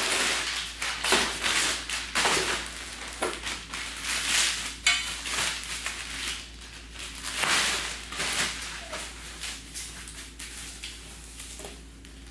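A shipping box being opened and its packing handled: irregular rustling, crinkling and knocks, busier in the first half and quieter toward the end.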